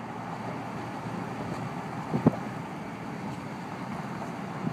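Car driving slowly: steady road and engine noise, with one short thump about halfway through.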